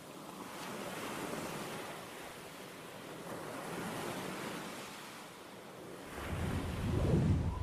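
Rushing noise of surf and wind, swelling and fading every two to three seconds. A deeper low rumble comes in about six seconds in and is loudest near the end.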